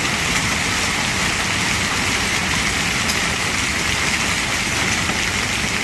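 Hail coming down hard, a dense, steady clatter of countless small impacts.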